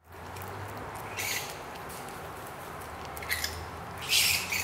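Common brushtail possum chewing food held in its front paws: a few short, crunchy bursts, the loudest about four seconds in, over a faint steady low hum.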